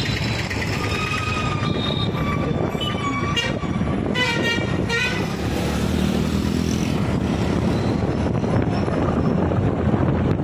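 Wind and engine noise from a moving motorcycle, with vehicle horns tooting in traffic, the clearest about four to five seconds in.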